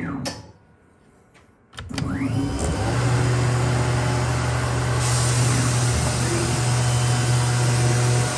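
CNC-converted Grizzly G0704 benchtop mill: its VFD-driven three-phase spindle motor winds down at the start, a short quiet spell follows with a few sharp clicks, then the spindle spins back up with a rising whine about two seconds in and runs steadily with a strong low hum as the stepper-driven table moves. A steady hiss joins about five seconds in.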